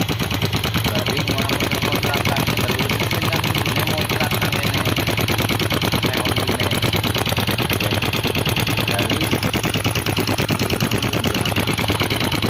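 Engine running steadily with a fast, even clatter.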